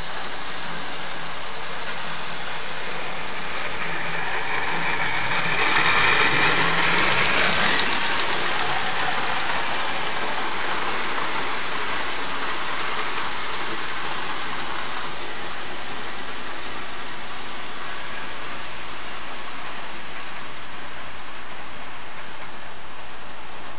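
Lionel 671 steam turbine O-gauge locomotive pulling a string of freight cars around the track: a steady rolling rumble and clatter of motor and wheels on the tinplate rails. It swells louder for about two seconds some six seconds in.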